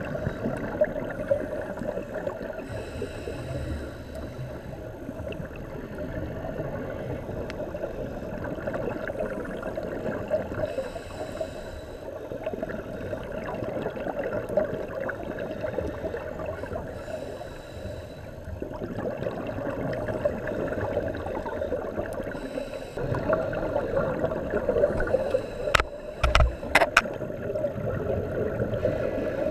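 Underwater sound of a scuba diver breathing through a regulator: a steady rumbling hiss with bubbly gurgling bursts of exhaled air every few seconds. A few sharp clicks come near the end.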